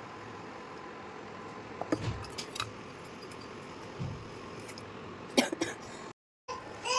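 A few light clicks and clinks with two soft low knocks over a steady hiss; the sound cuts out briefly near the end.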